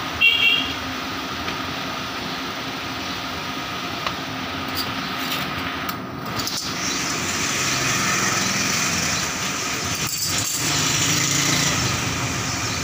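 Steady mechanical running noise, like a small motor or blower, with a brief high-pitched squeak just after the start.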